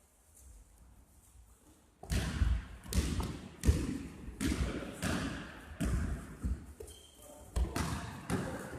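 Basketball bouncing on a gym floor in play, a run of irregular thuds with a light echo starting about two seconds in.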